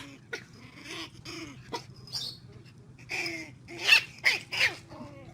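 Puppy yipping and whining in a string of short high cries, loudest in a quick cluster about four seconds in.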